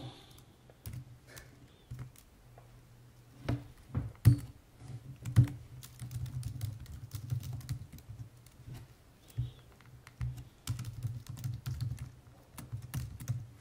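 Typing on a computer keyboard: scattered key clicks at first, then a denser run of typing in the second half, over a low steady hum.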